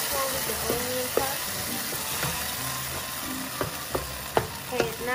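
Diced onion and tomato sizzling in oil in a nonstick frying pan while a wooden slotted spatula stirs and scrapes across the pan. Several sharper scrapes come near the end.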